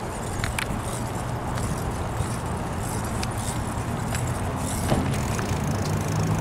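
Bicycle rolling over cracked asphalt: steady tyre rumble with scattered small clicks and rattles, under a steady low hum.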